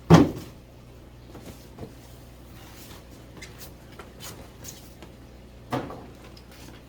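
Shipping boxes being handled: a loud thump at the start, light rustling and clicking, and a second, smaller thump near the end.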